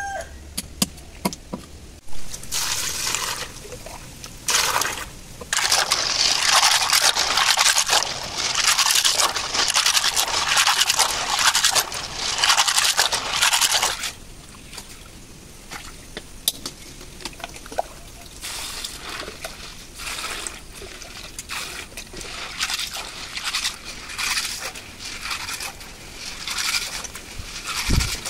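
Snails scrubbed by hand in a plastic basket of water: shells scraping and clicking against each other while water sloshes and trickles, with louder stretches of rushing, splashing water in the first half.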